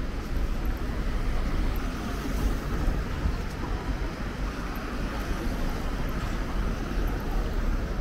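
Steady city street traffic noise with a low rumble underneath.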